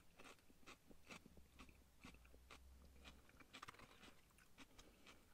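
Very faint chewing of a mouthful of lettuce: scattered soft crunching clicks.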